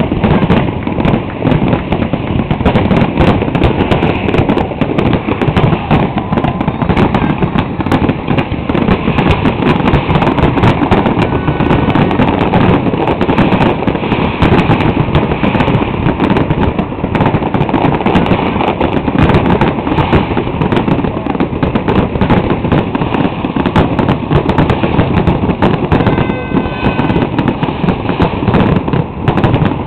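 Grand finale of an aerial fireworks display: shells bursting in a dense, unbroken barrage of overlapping booms with no pause between them.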